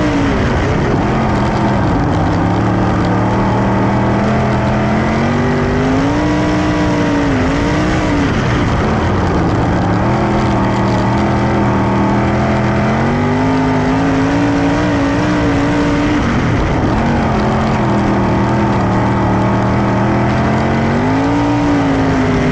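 Dirt-track sprint car's V8 engine racing at full song, its pitch climbing and dropping about every eight seconds as it goes on and off the throttle, over the rumble of other cars.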